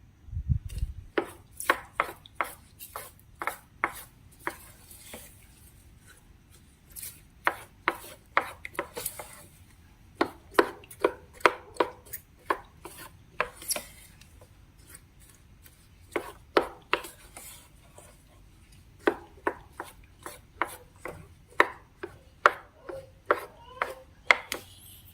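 Slime being worked: sharp, crisp clicks and snaps in irregular runs of several a second, with a few short pauses. A dull low thump comes right at the start.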